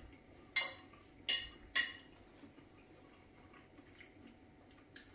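A metal fork clinking against a ceramic plate as it picks at food: three sharp clinks in quick succession within the first two seconds, then quiet room noise.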